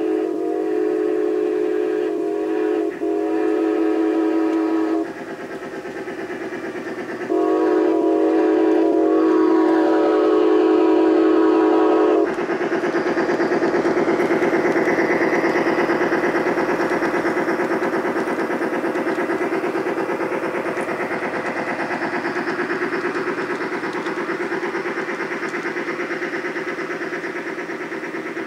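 A large-scale model train's electronic sound unit playing two long, steady whistle blasts through its speaker, with a short break between them. Then a steady running sound with a fine pulse continues, slowly fading.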